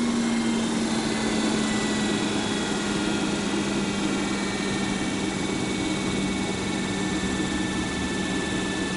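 Heng's Vortex II RV roof vent fan spinning down from high to low speed: a steady rush of air with a motor-and-blade hum whose pitch slowly falls, then holds steady for the rest of the time.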